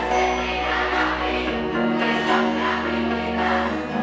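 Live pop music from a band on stage, with many voices singing, heard from among a loud club crowd.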